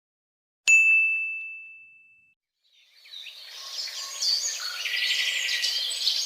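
A single high bell-like ding about a second in, ringing out and fading over a second or so. From about three seconds in it gives way to a busy chorus of small birds chirping.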